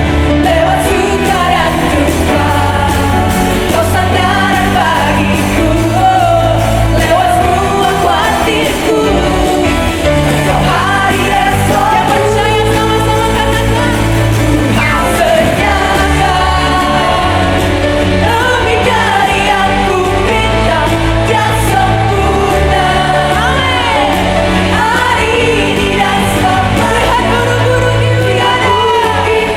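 Live worship band with singers performing a praise song: vocals over a steady bass and band accompaniment, with no pauses.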